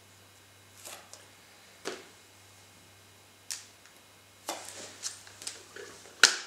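Hands handling a foam-board model flying wing: scattered light taps and clicks, busier in the second half, with one sharp click near the end.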